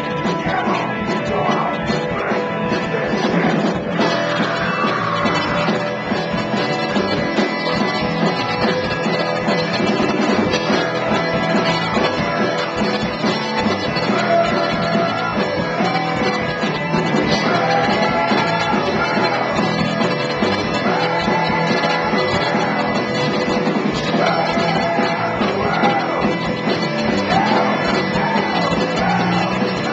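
Live rock band playing loud and steady, with a singer's voice coming in over the instruments about halfway through.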